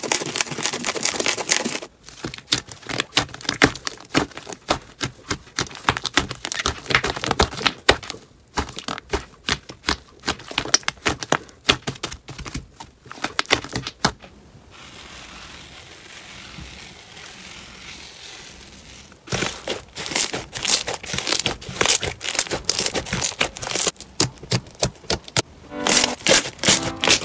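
Slime squeezed and pressed by hand, making rapid clicking and crackling. Partway through it goes soft and quiet for a few seconds, then the crackling comes back dense near the end.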